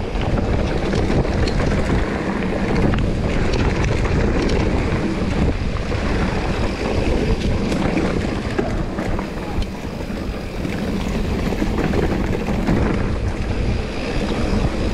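Wind buffeting the camera's microphone as a mountain bike runs fast down a dirt trail, over a steady low rumble of tyres on the ground and light clicking and rattling from the bike.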